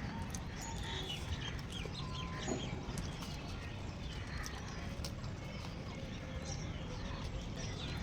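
Birds chirping repeatedly in short, scattered calls over a steady low background noise.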